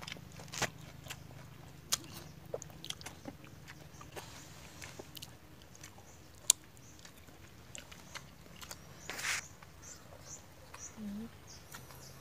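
Someone eating stir-fried balut with tamarind sauce from a plate: scattered clicks and taps of a spoon against the dishes and soft chewing, with one sharp click about halfway and a short rustle about nine seconds in, over a faint steady low hum.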